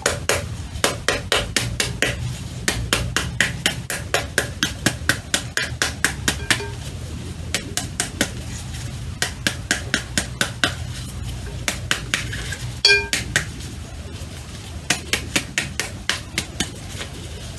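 A metal spoon beating the back of a halved pomegranate again and again, about three sharp smacks a second in runs with short pauses, knocking the seeds out into a glass bowl. One louder ringing clink comes about two-thirds of the way through.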